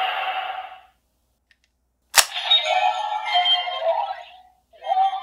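A toy sword's electronic effect fading out. After a short silence, a sharp plastic click from the DX Arc Ariser transformation toy, then bursts of electronic sound effects from its small speaker.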